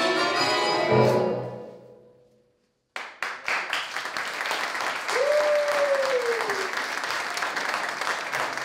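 A stage musical number ends on a final chord that dies away into a moment of silence. Then audience applause breaks out and carries on, with one drawn-out call from the crowd that rises and falls over it about five seconds in.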